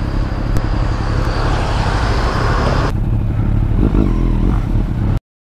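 Motorcycle engine running steadily, with hiss from wind and the road over it. The sound changes abruptly about three seconds in and stops dead near the end.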